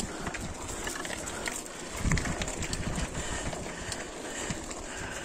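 Forever FM075 bike rolling over a rocky trail: tyres crunching on stones and the bike rattling and knocking, with a louder jolt about two seconds in.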